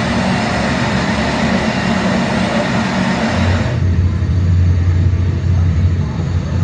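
Jet-engine sound effect of a model airliner taking off, played over the model airport's loudspeakers: a steady rushing noise. A little under four seconds in it cuts off suddenly, leaving a steady low hum.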